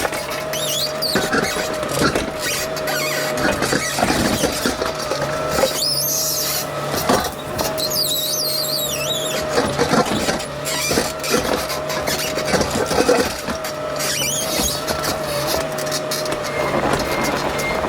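Digging machine working gravel: its engine drone and a steady whine hold under repeated knocks and scraping of the bucket in the gravel. Several high squeals rise and fall over it.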